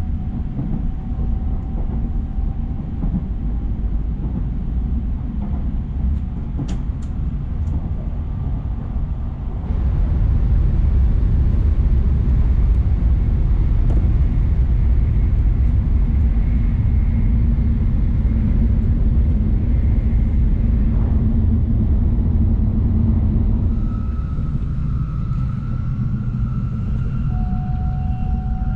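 Cabin noise of a Tokaido Shinkansen bullet train running at speed: a steady low rumble of the wheels and running gear with a faint high whine over it. It gets louder about ten seconds in and eases back about fourteen seconds later.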